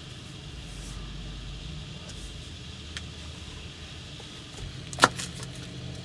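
Steady low hum of a van's roof vent fan running. About five seconds in comes a sharp knock, then a few knife chops on a cutting board.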